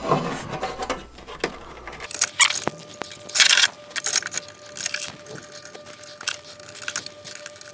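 Sheet-metal bottom cover plate of a 3D printer being handled and fitted into place: a scatter of short metallic rattles, clicks and scrapes.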